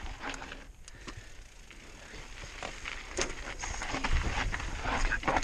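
Mountain bike rolling down a rocky dirt trail: tyres crunching over gravel and rock, with short clicks and knocks as the bike clatters over bumps. It grows louder, with a low rumble, from about four seconds in.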